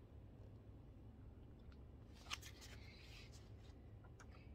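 Near silence with a low steady room hum, and a brief soft paper rustle about two seconds in as a book page is turned.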